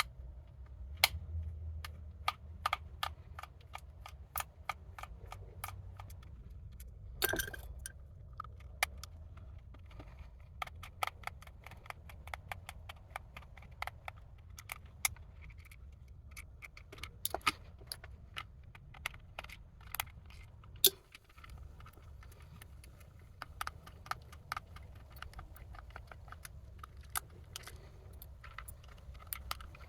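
Small screwdriver backing screws out of the plastic housing of a car's master window switch: irregular light clicks and ticks of metal on plastic, with a few louder knocks, over a steady low hum.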